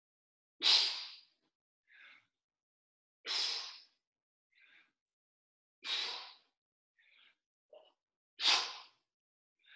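A man breathing out hard with each push-up: four short, forceful exhalations about two and a half seconds apart, with softer in-breaths between them.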